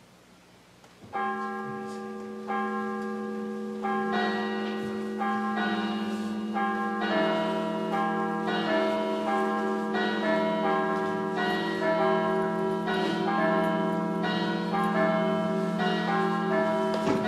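Church bells ringing: a run of strikes on different pitches, about one a second, starting about a second in, each note ringing on and overlapping the next.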